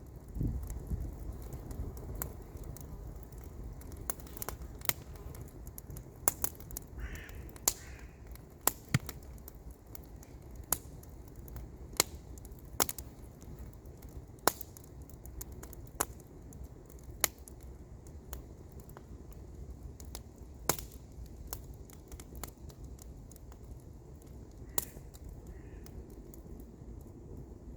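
Wood campfire crackling, with sharp irregular pops over a steady low rumble. A distant bird calls twice in quick succession about a quarter of the way in, and again faintly near the end.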